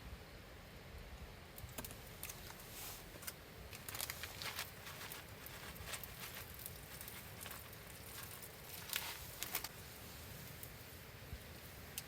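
Irregular crackling and popping over a low steady hiss from a wood campfire with an iron cooking plate set on its embers.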